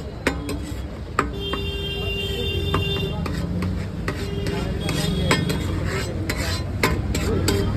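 A metal ladle stirs chicken curry in a large iron pan, with repeated clicks and scrapes against the pan over a steady low rumble.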